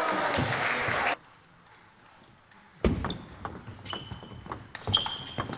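A short burst of cheering and clapping in the first second. From about three seconds in, a table tennis rally: the celluloid ball clicking off bats and table several times a second, some hits with a high ringing ping.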